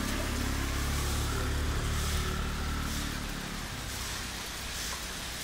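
A motor scooter passes on a wet street, its engine hum fading away about three seconds in, over the steady hiss of falling rain.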